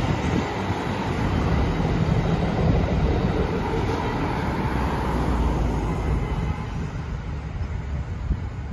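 VIA Rail's Ocean passenger train rolling across a concrete rail overpass and moving off, mixed with cars driving past on the road beneath. The noise eases slightly near the end.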